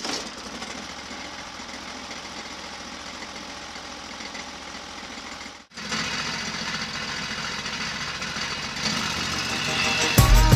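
Small gas engine of a portable bandsaw mill running steadily. It cuts off sharply about halfway and resumes in a second take that grows louder, with music coming in at the very end.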